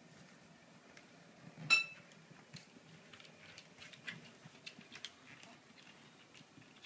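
A small dog's claws clicking irregularly on a wooden floor as it walks, with one sharp, ringing clink about a second and a half in.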